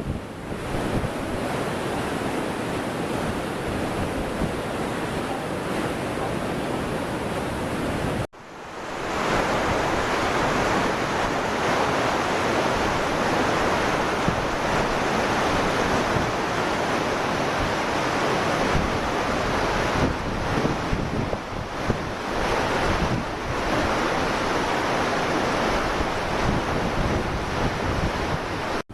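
Floodwater rushing steadily, with wind buffeting the microphone. About eight seconds in the sound cuts out for an instant and returns louder.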